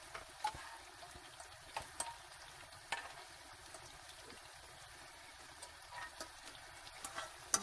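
Faint, steady sizzling of food frying in a hot pan, with a few light clicks of a utensil.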